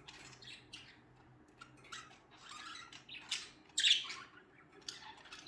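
Pet budgerigars chirping and squawking in short, scattered high-pitched calls, the loudest about three and a half and four seconds in.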